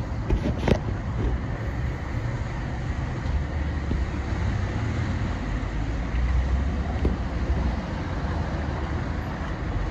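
Steady outdoor street noise, a low rumble of traffic and wind, with a couple of short knocks about half a second in.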